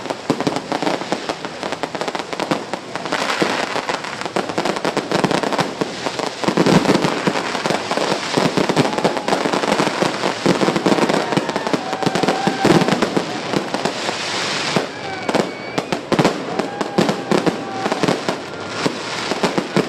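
Aerial fireworks display: a continuous barrage of booming bursts and crackling reports, overlapping with no break.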